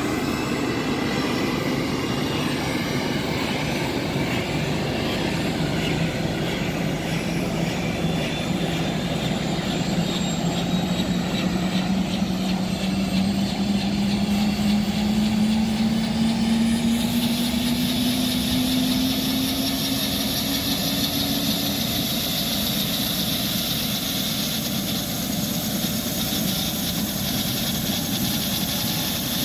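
Airbus H125 helicopter's Safran Arriel turboshaft engine and main rotor running up on the ground: a steady turbine rush with a low tone that slowly rises in pitch as the rotor gathers speed. About halfway through, the sound grows brighter, with a stronger high whine.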